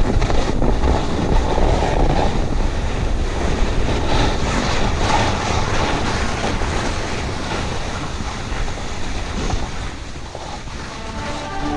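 Skis sliding and turning through snow on a descent, a steady hiss of snow under the skis over wind rumbling on the microphone. The noise eases off near the end.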